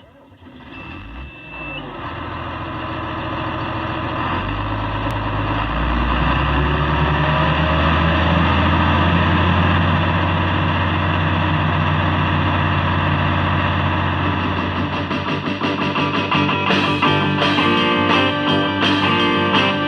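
Intro music: a low sustained drone that swells over the first several seconds, then breaks into rhythmic strummed guitar a few seconds before the end.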